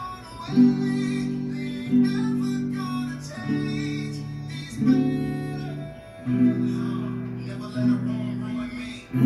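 Acoustic guitar strummed in chords, a fresh strum about every second and a half with each chord ringing on in between.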